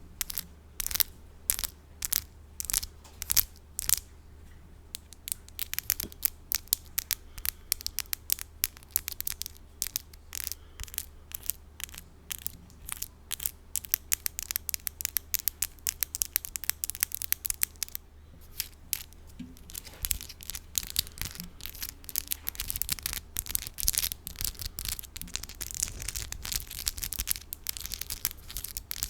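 Long 3D fingernails tapping and scratching close to a microphone: quick sharp clicks at first, turning into denser scratching from about two-thirds of the way in, over a low steady mains hum.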